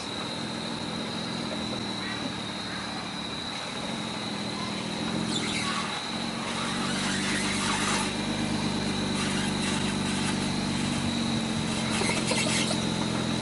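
BMW E46 330Ci ZHP's inline-six engine running at low revs as the lowered coupe rolls slowly. About five, eight and twelve seconds in come short scrubbing noises, which fit the tyres catching the wheel-well liners.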